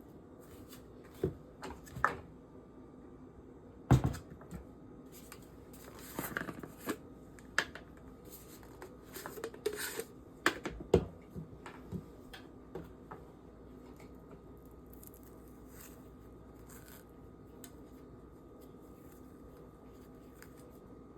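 Scattered clicks, knocks and rustles of small objects being handled, busiest in the first half, with the loudest knock about four seconds in; after that only a faint steady hum remains.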